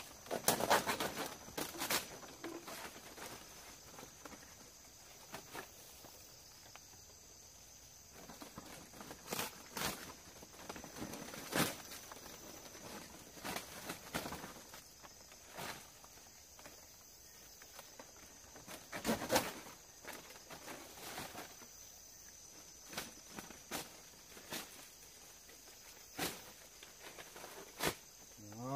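Scattered, irregular knocks and rustles of hand work as a door is fitted to a forest shelter, under a thin steady high hum of insects.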